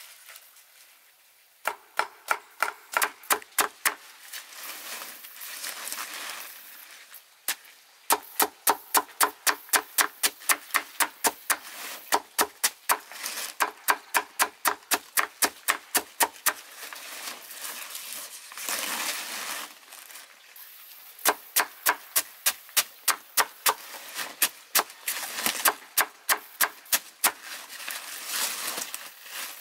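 Cleaver chopping bundles of green leaf stalks on a wooden board, sharp knocks at about three a second in long runs, with softer rustling in the pauses between runs.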